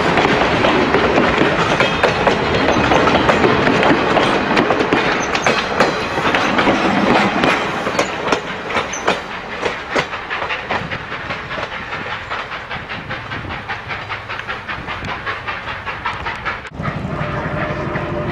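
Passenger cars of a train rolling past close by, their wheels clicking rhythmically over rail joints, the sound fading as the train draws away. Near the end it cuts abruptly to a steadier, lower rumble.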